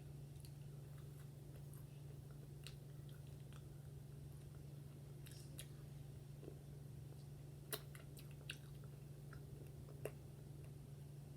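Faint close-up chewing of fried chicken, with a few scattered sharp clicks, over a steady low electrical hum.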